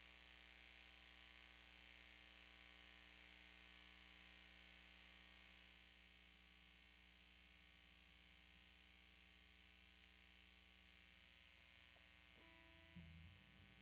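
Near silence: a faint, steady mains hum and buzz from the guitar's amp and recording chain, with one brief faint tone and a soft low bump near the end.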